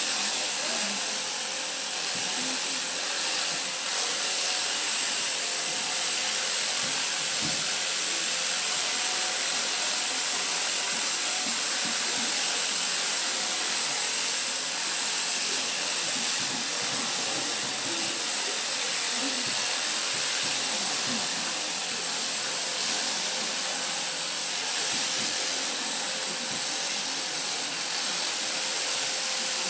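Electric sheep shears running steadily as they cut through the fleece, a continuous hissing buzz.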